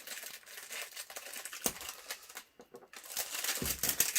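Packaging crinkling and rustling as it is handled, with scattered small clicks, a brief lull a little past halfway, and a dull knock near the end.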